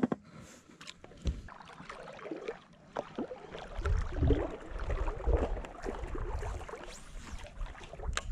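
Small fishing boat on the water: water lapping at the hull with scattered clicks and knocks of handled gear, and a low wind rumble on the microphone from about halfway through.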